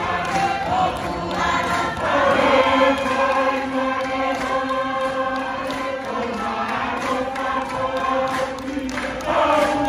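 A group of women singing a traditional Tuvaluan song together in chorus, holding long notes that step to new pitches every second or two.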